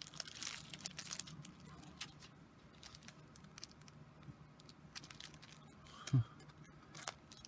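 Light rustling and crinkling of paper and plastic packaging being handled, with scattered soft taps. A brief murmur of a voice about six seconds in.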